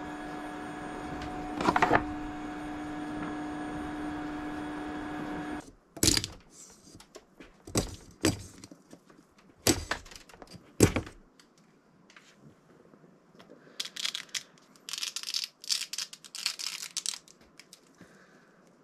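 Resin 3D printer running with a steady hum of a few fixed tones that swells briefly about two seconds in. Then come sharp snaps and clicks, about five in five seconds, as the print supports are broken off the cured resin part, followed by a spell of scratchy rustling as the part is picked clean.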